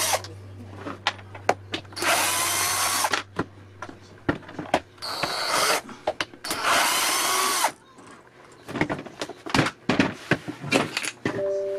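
Cordless drill/driver backing screws out of a car jump starter's plastic case, in three short runs of about a second each. Between and after the runs, sharp clicks and knocks of the plastic panel being handled and lifted off.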